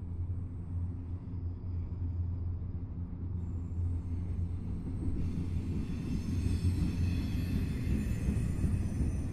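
Freight train boxcars rolling past on the rails: a steady low rumble, with a higher hiss and faint ringing of wheels on rail joining about five seconds in.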